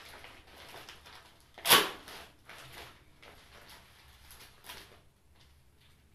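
Packaging being handled and opened: irregular rustling and crinkling, with one louder crackle a little under two seconds in.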